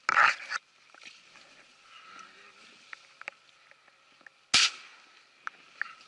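Dry reeds rustling and brushing against the camera for half a second. About four and a half seconds in, a single loud shotgun shot. Scattered light ticks come in between.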